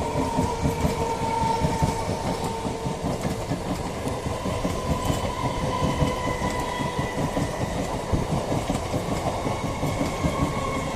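Sealdah–Shantipur EMU local train passing, its wheels clattering steadily over the rails with a faint steady whine above.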